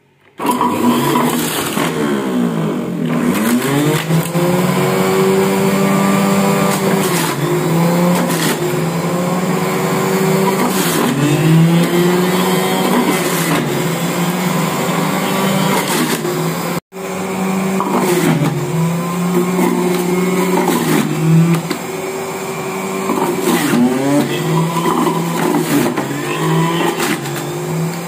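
Philips centrifugal juicer's electric motor switched on about half a second in and running loudly, its hum sagging in pitch and recovering again and again as carrots and beetroot are pushed in and load the motor. The sound cuts out for an instant around halfway.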